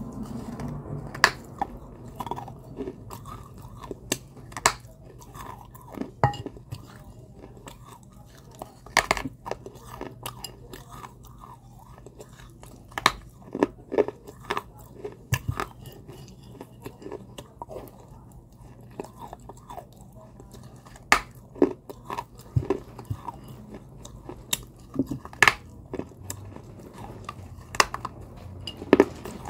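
Close-up biting and chewing of dry, crunchy clay chunks: sharp, irregular crunches, some loud, between stretches of quieter grinding.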